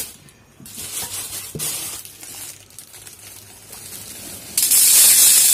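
Plastic bag of chana dal (split chickpeas) crinkling as it is handled, then, about four and a half seconds in, the dried grains pouring from the bag into a stainless steel bowl in a sudden loud, steady rush.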